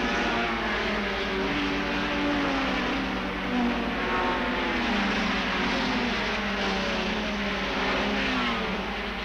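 Several racing car engines running together, their overlapping notes rising and falling as they rev and change gear, over a steady low hum.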